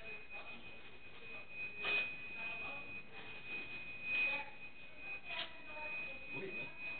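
A steady high-pitched whine over faint, uneven background noise, with brief faint voices now and then.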